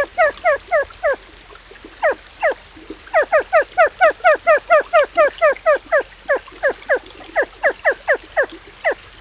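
An unseen animal calling a long series of short, loud, downward-slurring notes, about four or five a second, thinning out for a couple of seconds early on before resuming; a stream runs faintly underneath.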